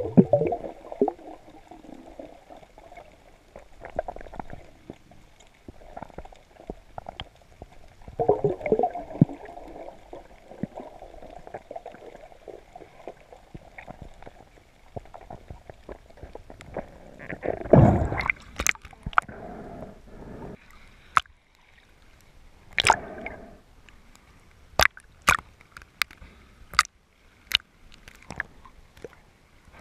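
Water sloshing and gurgling against a camera's waterproof housing, heard muffled underwater. About eighteen seconds in there is a loud whoosh, followed by a run of sharp clicks and splashes as the camera nears the surface.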